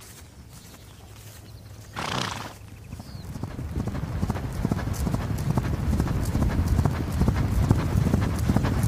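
A horse neighs briefly about two seconds in, then galloping hoofbeats on grass build up and grow steadily louder, a fast continuous drumming of hooves.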